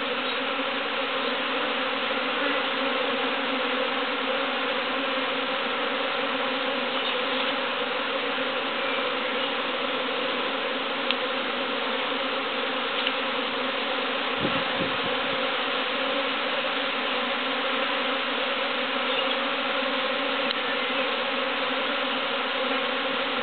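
Large honeybee swarm buzzing steadily at close range while the bees go into the hive: a dense, unbroken hum of many wingbeats with several steady pitches layered together.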